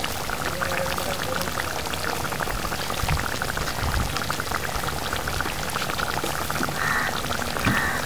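Fish curry broth bubbling in a steel pan on the stove: a steady crackle of many small popping bubbles.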